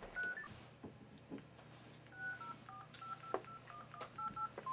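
Phone keypad tones: about a dozen short two-tone beeps as number keys are pressed, a pair near the start, then a quicker, uneven run through the second half.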